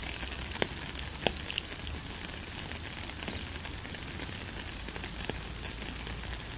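Steady rain falling, an even hiss with a few separate drops ticking sharply onto a surface, most of them in the first two seconds.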